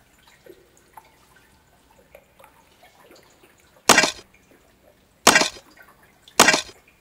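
Faint dripping of water, then three loud crashing thuds that come a little over a second apart.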